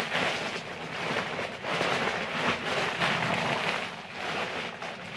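Parcel packaging rustling and crinkling as it is handled and unwrapped by hand, with a short lull about four seconds in.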